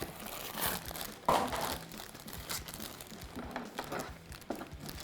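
Toy blind-box packaging being handled and opened: irregular crinkling and rustling, with a sharper crackle about a second in.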